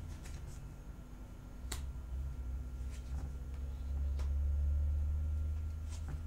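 Tarot cards being handled and laid down on a table, with four short sharp snaps as cards are pulled from the deck and placed. A steady low hum runs underneath.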